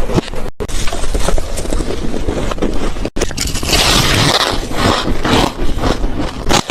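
Close-up crunching of freezer frost being bitten and chewed, a dense crackly, squeaky crunch made of many short bites, broken by two sudden brief dropouts.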